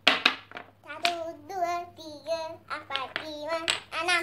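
Wooden toy blocks clacking together several times, then a young girl singing to herself from about a second in.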